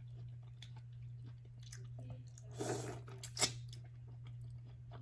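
Close-miked chewing and biting while eating: a run of small wet mouth clicks, a louder smacking stretch a little past halfway and a sharp click just after, over a steady low hum.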